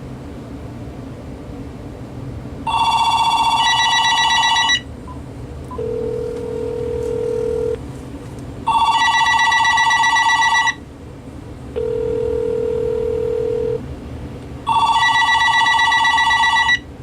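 General Electric 2.4 GHz cordless phone (model 27998GE-6B) ringing with an electronic trilling ring: three two-second rings, six seconds apart. Between the rings a quieter, lower steady tone comes from the calling phone, its ringback tone.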